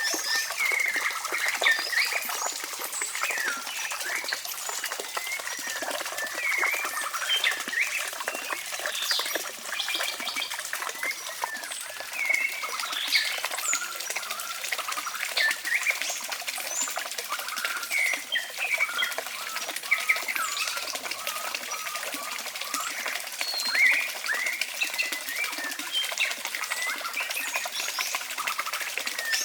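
Many small birds chirping and calling, with short overlapping chirps over a steady hiss.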